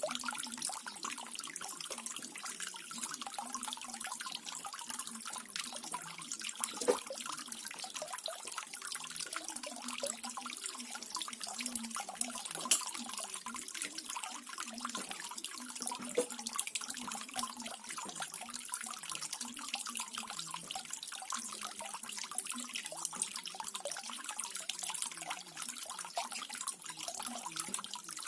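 Small garden waterfall: water splashing and trickling steadily into a pool, with the odd louder drip or plop.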